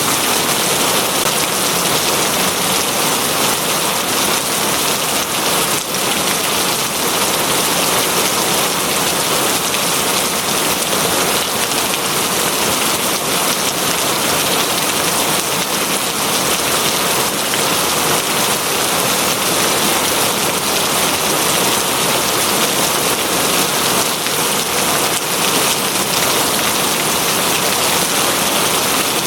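Steady, heavy rain falling on a surface, an even hiss with no change.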